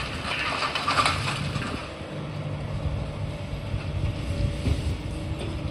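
Komatsu long-reach demolition excavator's diesel engine running steadily, with crunching and clattering of broken concrete and debris in the first couple of seconds as its attachment tears at the building.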